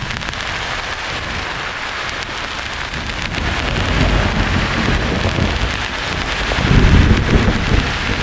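Steady, rain-like hiss of white noise with thunder rumbling low underneath; the rumble builds from about three seconds in and is loudest near the end.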